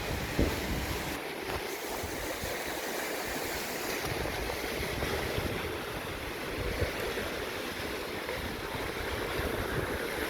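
Steady rush of sea surf mixed with wind blowing on the microphone, low buffeting rising and falling throughout.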